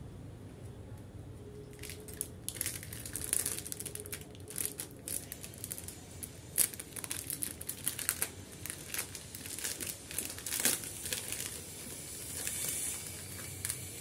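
Plastic packaging crinkling as it is handled and unwrapped, in irregular crackles that start about two seconds in and thin out near the end.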